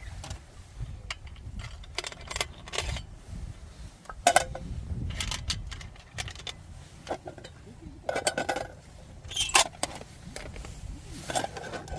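Metal camping gear being handled: scattered light clinks and knocks, several with a short metallic ring, over a steady low rumble.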